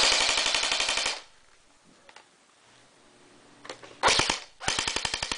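Echo 1 P-90 battery-powered airsoft gun firing on full auto in three rapid bursts. The first lasts about a second; two shorter ones follow near the end.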